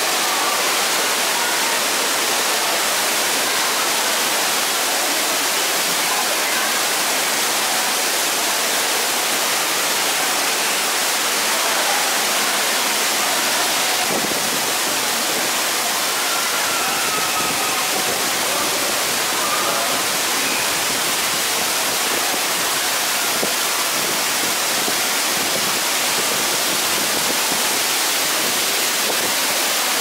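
Steady rush of moving water from a river rapids ride's flowing channel and waterfall, with faint distant voices in the middle.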